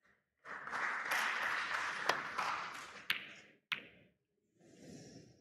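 Snooker balls and cue striking with sharp clicks, three of them about a second apart, over a broad hiss that fades out just after the last click.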